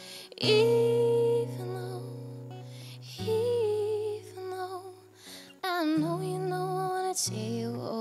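A woman singing a slow folk-pop song, holding long notes with vibrato, over acoustic guitar chords that change every couple of seconds.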